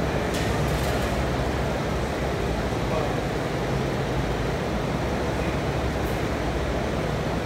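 Steady low rumbling background noise, with a few faint clicks about half a second in and again about six seconds in.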